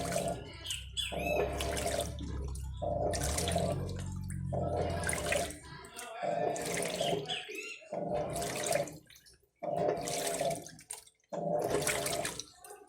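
Electrolux LTC15 top-loading washing machine agitating a full tub: water sloshes in surges about once a second as the agitator swings back and forth, with a motor whine in each stroke. A low hum underneath stops about five seconds in.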